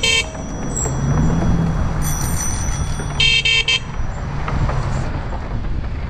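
Loud Bicycle Mini car horn on a bicycle honked twice in short blasts, once right at the start and once about three seconds in, over wind and crowd noise.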